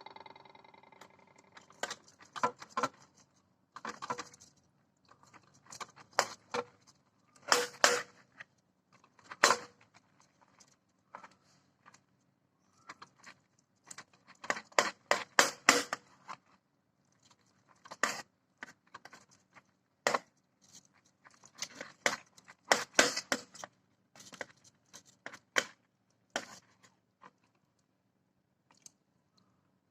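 Kitchen knife slicing baked barbecue pork spare ribs on a cutting board: irregular sharp clicks and knocks of the blade striking the board, in clusters with short pauses. It opens with a ringing clank that fades over about a second.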